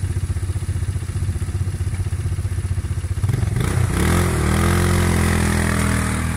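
Quad ATV engine idling with a steady chug. About three seconds in it revs up and holds a louder, higher note as the quad pulls away.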